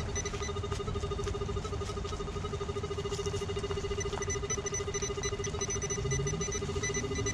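Metal detector sounding a steady, rapidly pulsing buzz tone: electromagnetic interference chatter, which the detectorist calls horrible.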